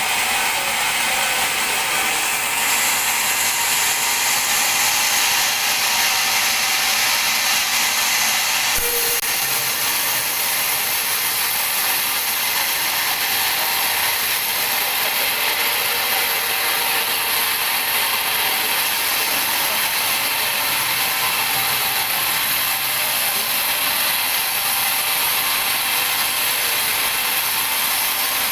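Large sawmill band saw cutting through a teak log, a steady high-pitched hiss and rattle of the blade in the wood. A knock comes about nine seconds in, after which the hiss changes pitch and goes on.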